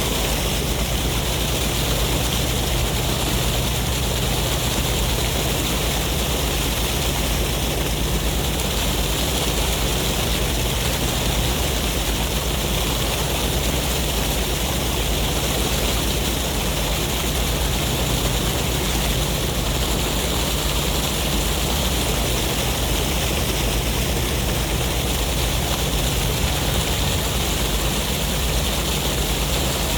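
Sea waves and wind together making a steady, even rush of noise, with no single wave breaking out above the rest.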